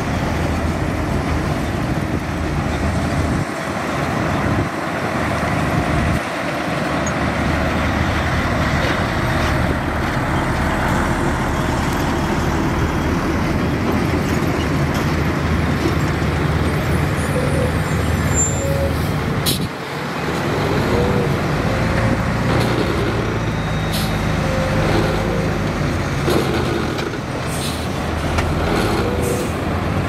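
Heavy diesel dump trucks and earthmoving machinery running steadily, with a sharp click about twenty seconds in and short squeaky tones in the last third.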